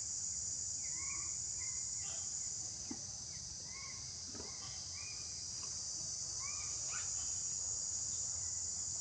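Steady high-pitched drone of an insect chorus, with faint short chirps recurring every second or so.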